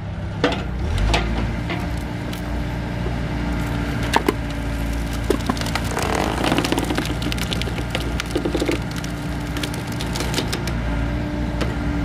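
A log cracking and splintering as it is forced onto a cross-shaped splitting blade by a Volvo mini excavator and hydraulic splitter, with the excavator's engine running steadily underneath. The crackling is densest about halfway through.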